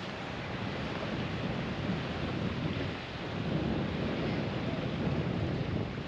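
Steady rushing noise of surf and wind, with a low, uneven rumble of wind buffeting the microphone.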